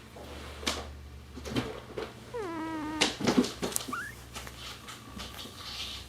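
Kitten vocalising in her sleep: a short mew that falls in pitch and then levels off about two and a half seconds in, and a brief rising squeak near four seconds, among small clicks and rustles.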